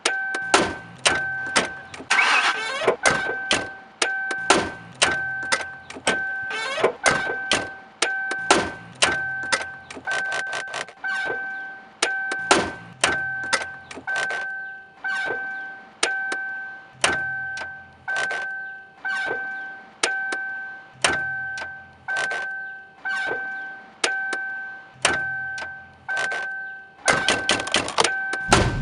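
A rhythmic mashup built from Mercury Grand Marquis sounds: sharp clicks and knocks in a steady beat, a repeating electronic chime pulsing about one and a half times a second, and a low thump about every two seconds. Near the end the clicks run fast, and a loud low burst follows.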